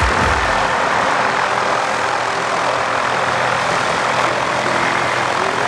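Aircraft engine running with a steady rushing drone, at an even level throughout.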